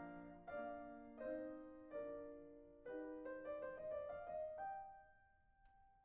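Background piano music: gentle chords struck roughly once a second, ending on a single held note that fades away near the end.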